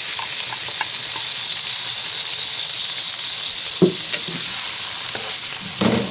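Canned tuna chunks sizzling steadily in melted butter in a nonstick wok while a wooden spatula stirs them, with two sharp knocks of the spatula on the pan, one about four seconds in and one near the end.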